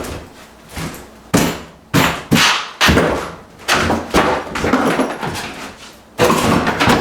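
Knocks and thuds from hands-on work at kitchen cabinets during a tear-out: a string of sharp knocks every half second or so, then a denser run of knocks near the end.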